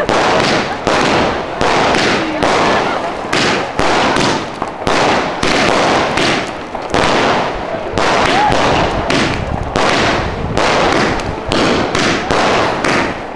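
Fireworks going off in a continuous barrage, sharp bangs and cracks following one another two or three times a second. A brief whistle comes about eight seconds in.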